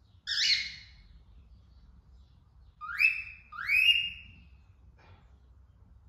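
Female cockatiel calling: one short call, then two loud rising whistled calls in quick succession.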